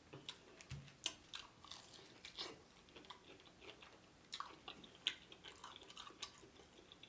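A person chewing crispy fried chicken: soft, irregular crunches and wet mouth clicks.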